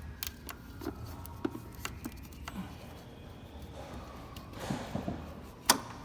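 Scattered light clicks and knocks of hands refitting a tube connection on an engine, with one sharp, louder click near the end.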